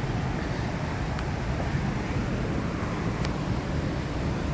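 Steady rushing roar of Athirapally Falls, mostly deep rumble, with a couple of faint ticks.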